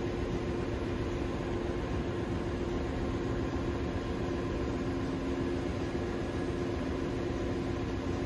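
Ship's engine-room machinery running steadily: a constant mechanical hum with a couple of steady low tones over a broad rumble.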